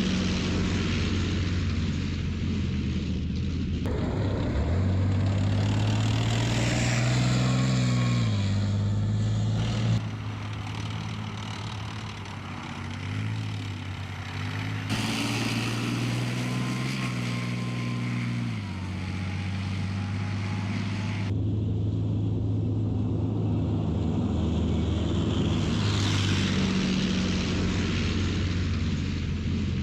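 Leopard 2 tank's V12 diesel engine running, with its pitch rising and falling as it revs, over a hiss of track and drivetrain noise. The sound jumps abruptly several times.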